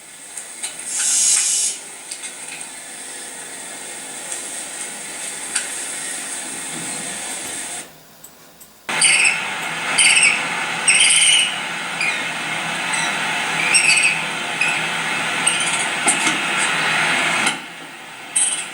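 Barn owl sounds: a steady hissing, then, after a brief break about eight seconds in, a run of short shrill screeches about once a second.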